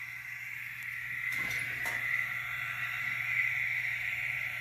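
Diesel engine sound from an ESU LokSound Select Micro decoder playing through the tiny speaker of a Kato N scale SD70AH model locomotive: a steady, thin drone that grows slightly louder as the locomotive starts moving off.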